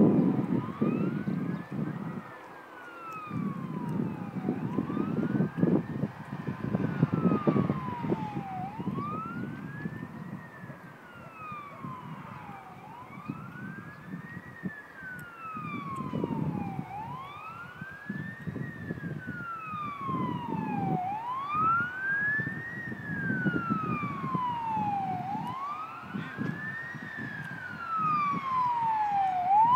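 A siren wailing, its pitch sweeping up and falling back about every four seconds, seven times over, with a gusty low rumble underneath.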